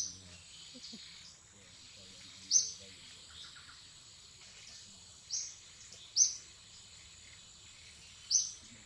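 Short, sharp, high chirps from a bird, five in all, a couple of seconds apart, over a steady high-pitched insect hum.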